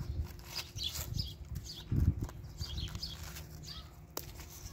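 Small birds chirping over and over in short falling notes, with the rustle and handling of clumped grass clippings and a dull low thump about two seconds in.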